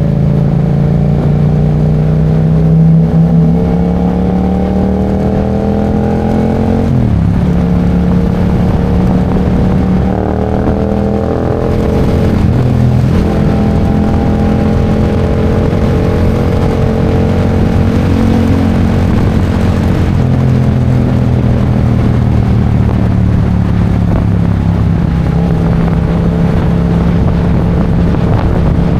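Yamaha MT-07's 689 cc parallel-twin engine under way, its pitch climbing steadily as it pulls, with sharp drops in pitch about seven and twelve seconds in, then running at a fairly steady pitch.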